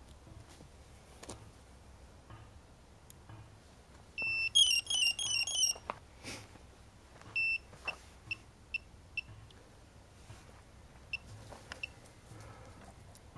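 High electronic piezo beeps from a Mikrokopter L4-ME quadcopter powering up. About four seconds in there are roughly two seconds of rapid beeps stepping between pitches, then one longer beep and a string of short single beeps about half a second apart, with a few more short beeps near the end.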